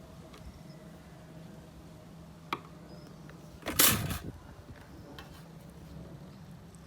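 Breville Dual Boiler espresso machine's boiler draining out through its drain valves after descaling, a steady low hum with faint ticks. About four seconds in there is one short, loud, hissing burst.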